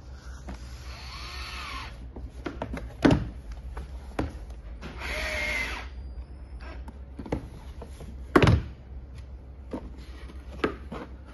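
Cordless drill driving short screws into a plastic truck door panel. It whirs in two short runs, one about half a second in with the motor speed rising and falling, and one about five seconds in. Sharp knocks, the loudest sounds, come about three and about eight seconds in.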